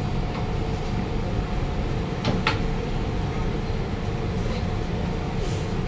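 Interior of a Siemens C651 train car standing at a station with its doors open: a steady low rumble with a faint steady hum, and two sharp clicks in quick succession a little over two seconds in.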